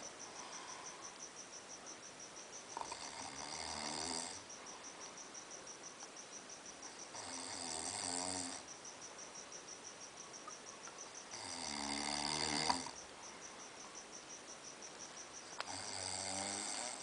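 Heavy snoring: four long snores about four seconds apart, each swelling in loudness before it stops.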